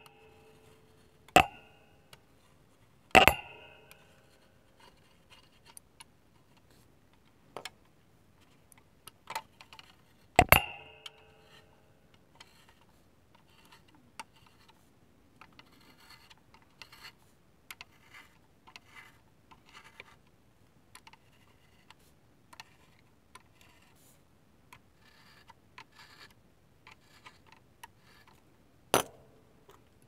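Small hobby bottles and tools being handled on a workbench: four sharp clinks that ring briefly, about a second in, three seconds in, ten seconds in and near the end, with many faint clicks and short rustles in between.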